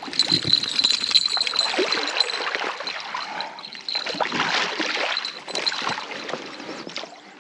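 Water splashing and trickling at the river's edge, with scuffs and knocks mixed in. A steady high-pitched whine runs through it, and the splashing dies down near the end.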